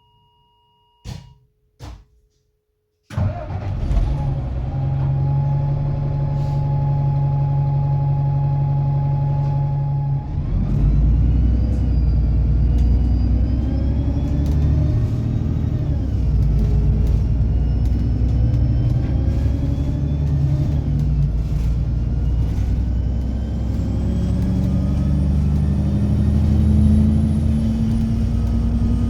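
Alexander Dennis Enviro 300 bus: a few clicks and a faint steady tone, then about three seconds in the diesel engine starts suddenly and runs steadily. About ten seconds in it gets louder, and a drivetrain whine rises in pitch and drops back several times, as it does when the bus pulls away and changes gear.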